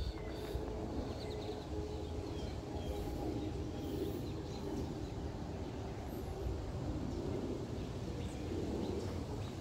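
Outdoor ambience at a woodland lake: a steady low rumble, with faint short bird chirps now and then.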